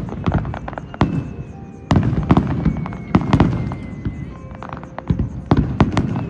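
Aerial fireworks shells bursting in quick succession: a dense run of sharp bangs and crackles, with heavier booms about once a second or two.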